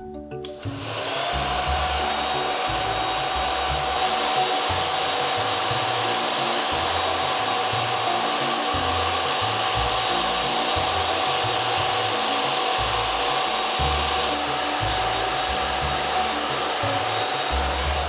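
Handheld hair dryer switched on about half a second in, its motor whine rising briefly and settling at one steady pitch over a constant rush of blown air.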